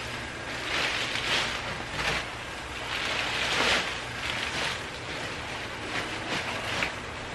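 Large clear plastic wrapping bag crinkling and rustling as it is pulled and gathered by hand, in irregular swells.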